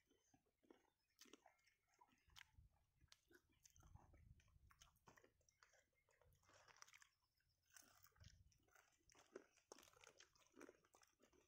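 Faint chewing and biting as beef curry is eaten by hand, with scattered small clicks and crinkling of the paper food wrappers.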